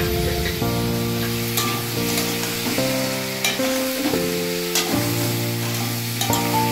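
Potato pieces sizzling in hot oil in a steel wok, with a metal spatula scraping and turning them. Background music with held chords that change about once a second plays over it.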